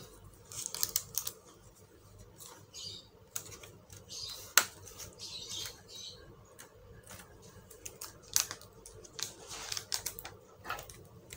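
Irregular light clicks and plastic rustling from a laptop keyboard being handled and pressed into the laptop's chassis, with one sharper click about four and a half seconds in.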